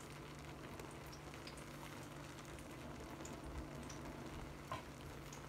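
Faint steady hum with scattered soft crackles from a pot of biryani rice on low heat, and one short tap near the end.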